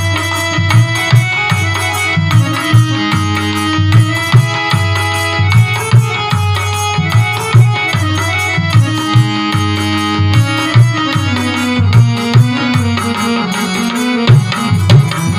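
Instrumental passage of a Hindi devotional song (bhajan): a tabla-style hand drum keeps a steady beat under held melody notes.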